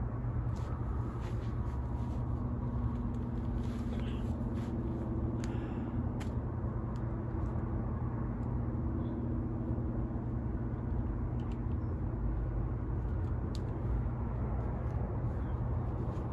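Steady low rumble of distant city road traffic, with a faint drifting hum and a few small ticks.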